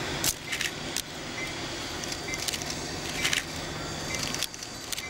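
Steam 2-6-2T tank locomotive venting steam beside an idling Western Pacific diesel locomotive: a steady rumble and hiss, with a few sharp clicks scattered through it.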